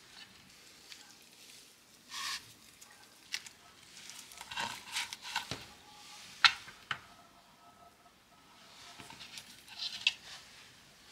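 A bamboo gimbap mat handled over a wooden cutting board as a seaweed rice roll is rolled and pressed by hand: scattered rustles and light clicks of the bamboo slats, with one sharp tap a little past halfway.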